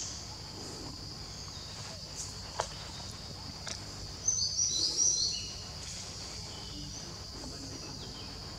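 Outdoor woodland ambience: a steady high-pitched insect drone over a low rumble, with a short run of bird chirps about halfway through and a single faint click a little before it.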